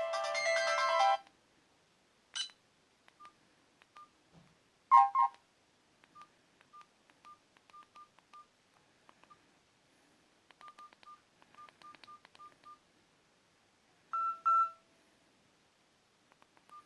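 Nokia 215 mobile phone: a polyphonic ringtone cuts off about a second in, followed by quiet short keypad beeps and faint button clicks as the phone's keys are pressed. A louder two-note blip comes about five seconds in, and a longer beep near the end.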